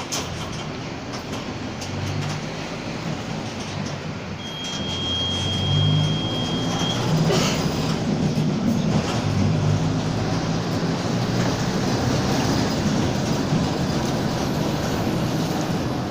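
Mercedes-Benz OF-1722M city bus heard from inside, its front-mounted diesel engine pulling under load and getting louder from about six seconds in, with road rumble and body rattle; the bus's driveshaft growls in second gear. A thin steady high tone sounds for about two and a half seconds near the middle.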